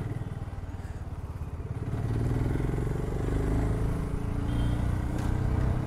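BSA Gold Star 650's single-cylinder engine running under way, its exhaust note a steady beat of low pulses. It grows louder about two seconds in, then holds steady.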